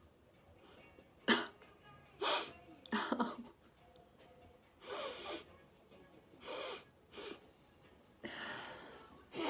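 A woman's uncovered sneezes brought on by chhinkni sneezing powder, in a string of short breathy bursts with sniffs and breaths between them. The sharpest and loudest burst comes about a second in, and a longer airy breath follows near the end.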